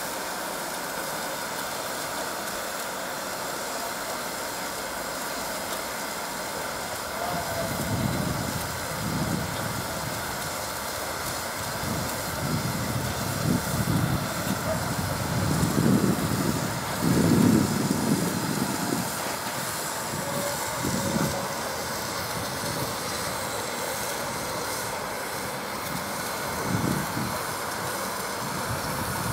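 DB class 23 steam locomotive 23 071 standing ready to depart, its steam hissing steadily, with irregular low rumbles through the middle of the stretch.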